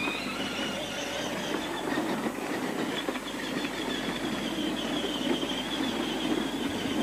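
Battery-powered toy tractor's electric motor and gearbox running with a steady high whine over a rougher rumble.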